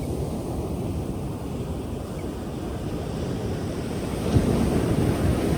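Pacific Ocean waves breaking and washing in, a low steady surf that swells louder about four seconds in.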